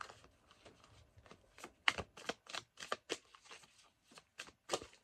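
A deck of angel-number oracle cards being shuffled by hand, overhand: a string of short, irregular card clicks and slaps, a few a second, the loudest about two seconds in.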